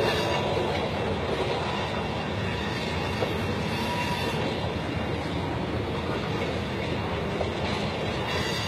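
Freight train of covered hopper cars rolling past, its wheels running steadily on the rails.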